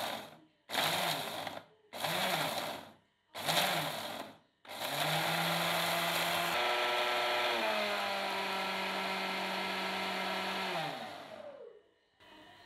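Electric food-processor spice grinder grinding whole spices (coriander, cumin, cardamom, cinnamon, dried red chillies). It is pulsed in four short bursts, each spinning up and down, then run continuously for about seven seconds. The motor's pitch steps down twice during the long run, and it winds down near the end.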